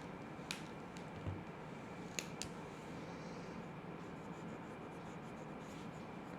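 Pen or marker drawing on paper: faint scratchy strokes and a few light clicks and taps, over a steady background hiss and low hum.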